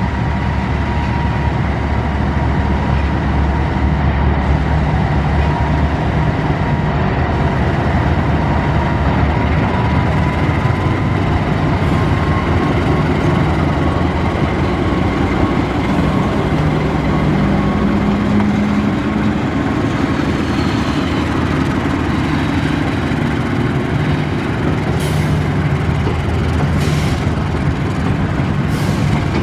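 CC 206 diesel-electric locomotive hauling a passenger train past, its diesel engine running loud and steady with a steady whine over it. The train's wheels run along the rails, with a few sharp clicks near the end.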